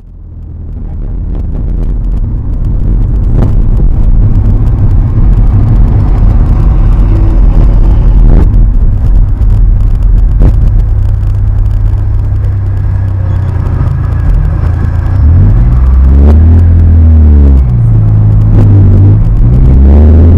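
Car engine and road noise heard inside the cabin with the windows up, a heavy low rumble. The car slows through a toll booth, then the engine note rises and falls as it pulls away about three-quarters of the way through.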